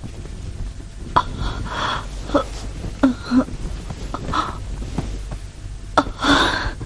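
A woman moaning and gasping in delirium: about half a dozen short, breathy moans spaced a second or so apart, the longest and loudest near the end.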